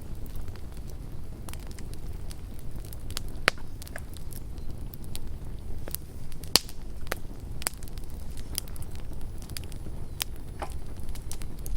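Wood campfire burning with a steady low rumble and irregular sharp crackles and pops, the loudest pops about three and a half and six and a half seconds in.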